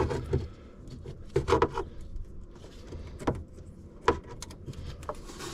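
A few irregular clicks and light knocks of hands and a tool working the throttle cable loose from a jet ski's carburetors, over a low steady hum.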